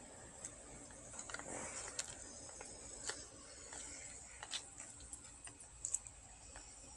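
Quiet outdoor ambience: faint scattered ticks and light clicks over a steady high-pitched hiss, with a couple of sharper clicks about two and six seconds in.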